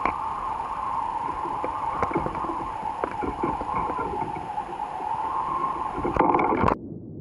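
Lapping, gurgling seawater with scattered small clicks, over a steady, wavering high hum. The sound cuts off suddenly near the end, leaving a faint low hiss.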